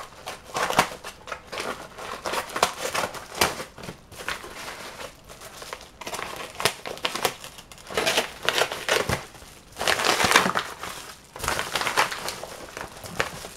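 Paper padded mailer bag crinkling and crackling as it is cut open with scissors and crumpled back to free the box inside, in irregular bursts that are busiest about two thirds of the way through.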